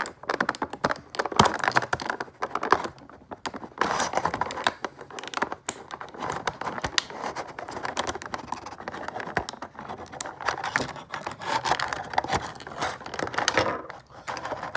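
Plastic toy packaging being handled at close range while a figure is worked free of its ties: dense, irregular clicking and crackling of stiff plastic and cardboard, with a few sharper clicks.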